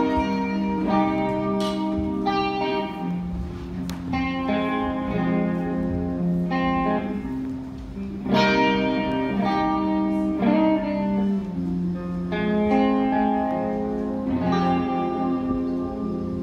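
Guitar playing slow chords, one struck about every two seconds and left to ring.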